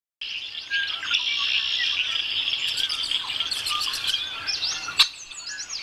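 Many birds chirping and singing together, a dense run of quick chirps and trills, with one sharp click about five seconds in.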